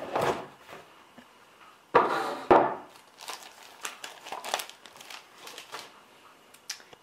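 Cardboard jigsaw puzzle box handled, then the crinkly plastic bag and paper instruction sheet inside it rustling and crinkling in bursts, loudest about two seconds in, followed by smaller crackles.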